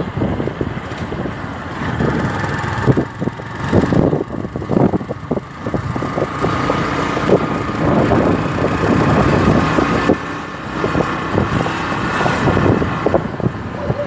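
Motorcycle running along a street, with wind buffeting the microphone in uneven gusts.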